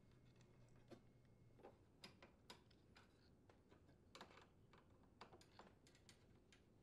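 Faint, irregular clicks and ticks of a Phillips-head screwdriver turning out the mounting screws of a dishwasher's metal front housing, with the metal parts clinking lightly.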